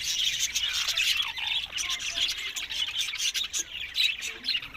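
Indian ringneck parrots chirping and squawking, a rapid, busy run of short high calls and clicks.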